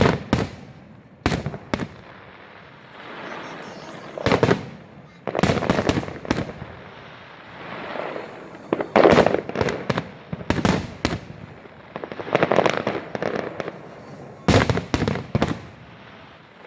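Aerial fireworks bursting: a string of sharp bangs, some single and some in quick clusters, with rumbling between them.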